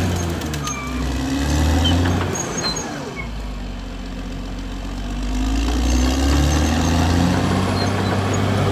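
Caterpillar D6R XL bulldozer's diesel engine running. Its pitch and loudness drop to a low idle about three seconds in, then climb back up about three seconds later.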